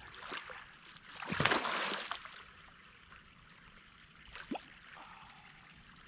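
River water running, with a burst of splashing about a second and a half in from a hooked pike thrashing in the water.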